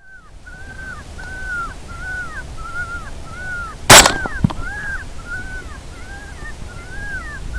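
A single rifle shot about four seconds in, followed about half a second later by the fainter crack of the bullet hitting. Under it runs a steady string of short, high-pitched wavering calls, about two a second, that carries on unchanged through the shot, as from an electronic predator call.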